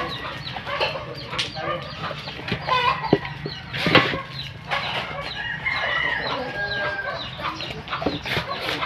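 Chickens clucking in a yard, with a rooster crowing partway through.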